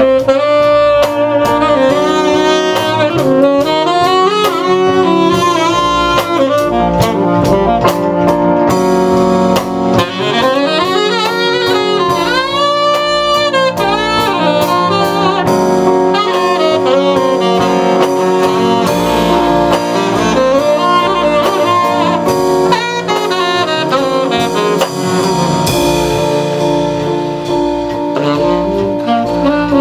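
Live jazz quartet: a tenor saxophone plays a flowing melodic line over keyboard, upright bass and drum kit.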